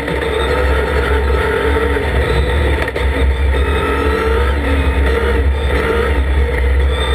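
Dacia Duster race car's engine heard from inside the cockpit while driven hard, its pitch climbing and dropping again and again as it accelerates and shifts, over a heavy low rumble.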